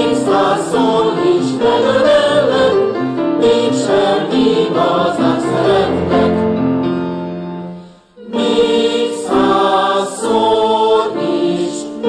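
Mixed choir singing a Hungarian folk-song arrangement, accompanied on a slightly out-of-tune Blüthner piano. About two thirds of the way through, a held chord fades away into a brief pause, then the choir comes back in.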